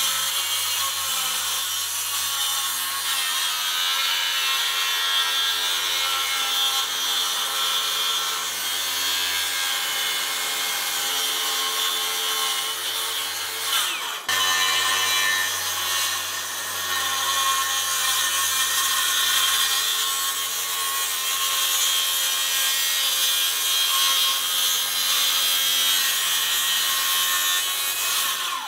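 Cordless DeWalt brushless circular saw running steadily under load as its blade cuts a straight line through a countertop, with a steady whine over the cutting noise. It breaks off for an instant about halfway through, then carries on.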